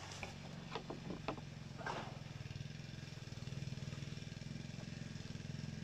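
A small engine running steadily with a low, even hum. Over it come a few light knocks and a short rustle in the first two seconds.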